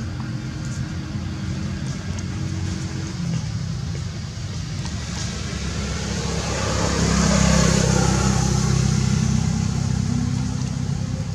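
A motor vehicle's engine running with a steady low hum, growing louder with a rushing hiss as it passes, loudest about seven to eight seconds in, then fading.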